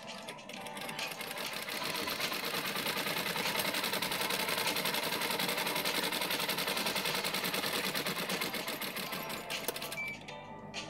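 Black straight-stitch sewing machine running, its needle stitching fast through blouse fabric. It picks up speed over the first couple of seconds, runs steadily, and stops about ten seconds in.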